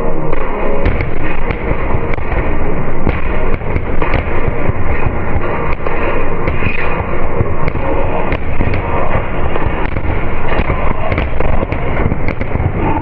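Fireworks display: many aerial shells bursting in quick, continuous succession with sharp bangs, starting about a second in, over music.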